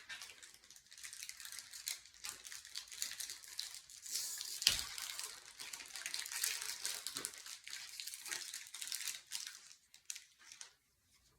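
Foil wrapper of a Pokémon card booster pack crinkling and tearing as it is opened and handled, a dense crackle with one sharp click about five seconds in.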